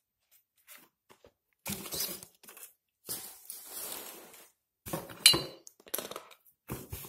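Unpacking and handling noises: rustling in a cardboard box, then hard plastic parts clacking as the black plastic scalar ring bracket is pulled out. A sharp clack about five seconds in is the loudest sound, followed by a few lighter clicks.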